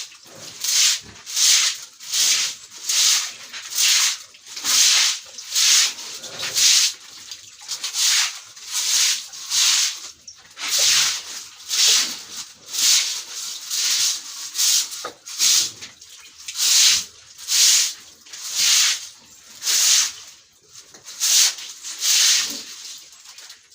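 Stiff broom sweeping a pig pen floor in quick, even strokes, about two swishes a second.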